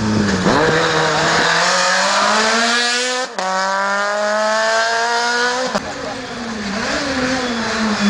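Rally car engine at full throttle, its pitch climbing steadily as it accelerates. The sound breaks off abruptly twice, and near the end the engine note rises and falls.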